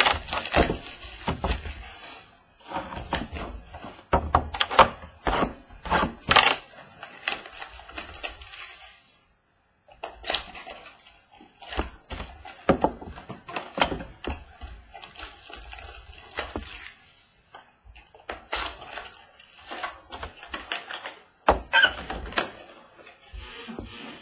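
A cardboard trading-card box being torn open and its packs pulled out, handled and knocked down onto a wooden table: irregular crinkling, tearing and light knocks, with a pause of about a second near the middle.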